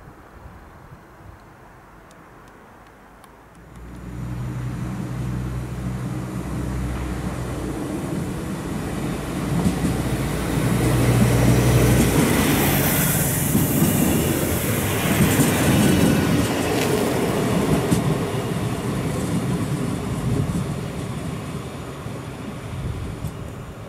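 Deutsche Bahn class 623 LINT diesel multiple unit pulling away: its diesel engines throttle up about four seconds in with a steady hum, the sound grows as the railcar passes close by, then fades as it draws away.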